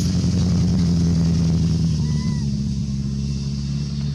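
A motor engine running steadily with a low, even drone, and a short high chirp about two seconds in.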